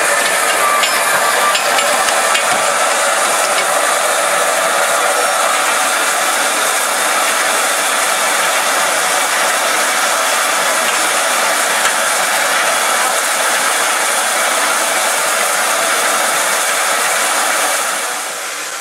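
Steam locomotive, Midland 4F 0-6-0 No. 43924, standing with steam hissing steadily from it; the loud, even hiss fades a little near the end.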